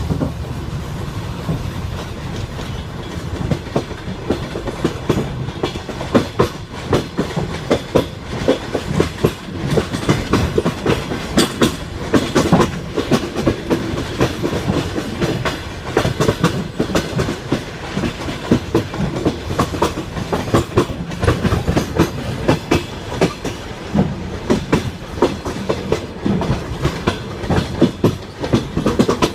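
Train wheels clattering over rail joints: a continuous run of sharp, uneven knocks over a low rolling rumble.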